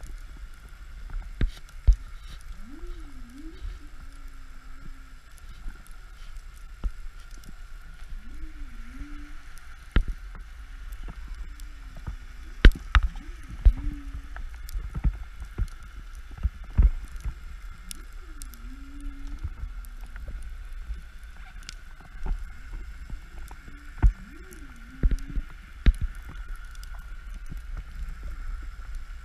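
Underwater sound through an action camera's housing: a steady low rumble of water movement with many sharp clicks and knocks scattered throughout. A faint pitched sound that rises and then falls comes back every few seconds.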